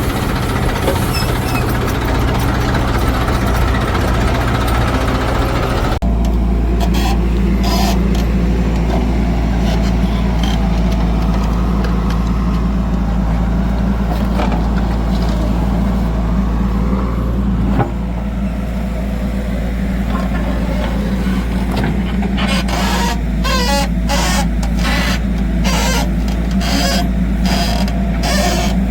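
Heavy vehicle engine running steadily, its sound changing abruptly twice, with a run of short knocks and clatters near the end.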